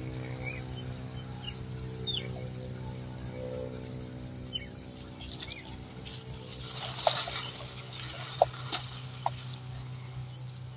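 Short, falling bird chirps repeated every second or so over a steady low hum. A few sharp clicks and a brief rustling burst come about two-thirds of the way through.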